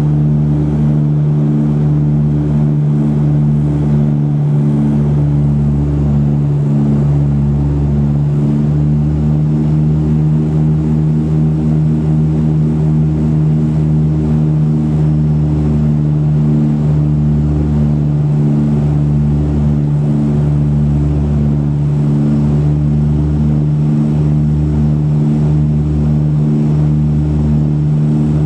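Cabin drone of a Dash 8-100's twin turboprop engines and propellers: a steady, loud low hum with a regular wavering beat.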